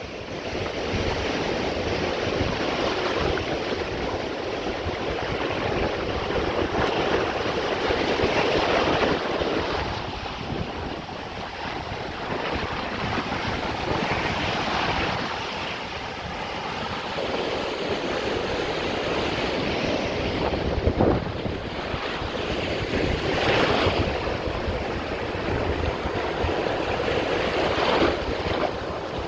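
Ocean surf, waves breaking and washing up the shore, with louder surges every few seconds. Wind is blowing on the phone's microphone.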